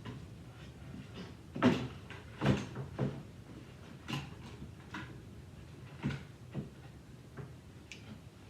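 Irregular knocks and clunks of wooden pieces being handled and set in place, with the two loudest a little under a second apart about two seconds in.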